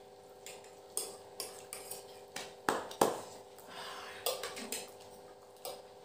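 Metal forks and spoons clinking and scraping against ceramic plates while two people eat noodles. About ten irregular sharp clinks, the loudest about three seconds in, over a faint steady hum.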